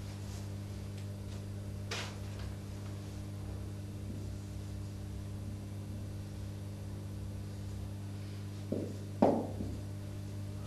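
Steady low electrical hum, with light knocks of a marker against a whiteboard: one about two seconds in and a sharper, louder pair near the end.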